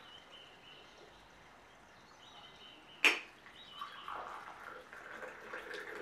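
A single sharp clink of the ceramic teapot about halfway through, then hot tea pouring from the teapot into a glass mug.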